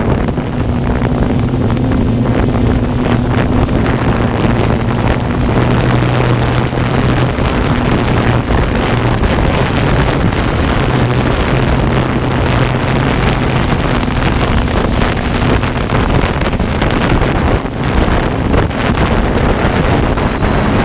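Multirotor drone's motors and propellers running with a steady hum, picked up close by the drone's own onboard camera, with wind rushing over the microphone.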